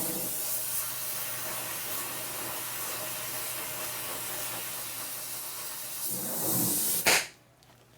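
Gas torch flame hissing steadily on a bolt head, heating it to free a tight Allen-head bolt. The hiss swells briefly and cuts off suddenly about seven seconds in as the torch is shut off.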